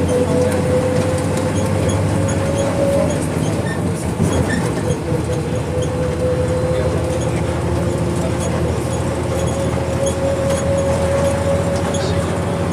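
Volkswagen 17.230 EOD bus running under way: a steady engine drone with a high whine over it that slowly rises in pitch, once at the start and again from about five seconds in.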